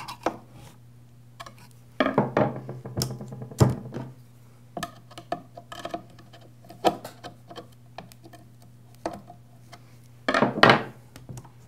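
Light clicks and metallic rattles of a chainsaw chain and guide bar being handled while the chain is tensioned and pulled to check its fit, with denser bursts of clatter about two seconds in and again near the end.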